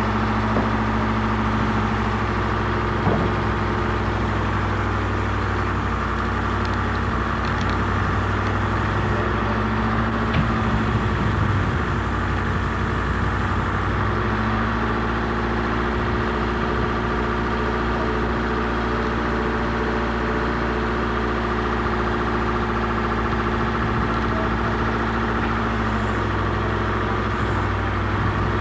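A steady engine hum, as of a motor idling, running unchanged throughout, with a few faint knocks over it.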